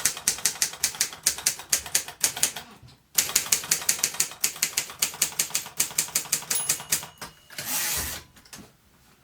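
Moskva-4 portable manual typewriter being typed on, typebars striking in quick runs of about six strokes a second. The typing pauses briefly about three seconds in. Near the end comes a short rasping burst of noise.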